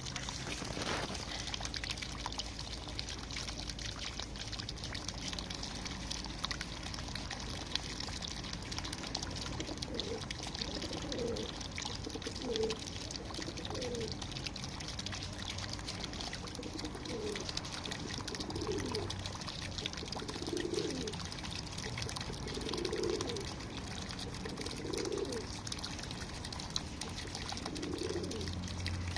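Water pouring and trickling steadily where birds are bathing. From about ten seconds in, pigeons coo again and again, a short low call every second or two.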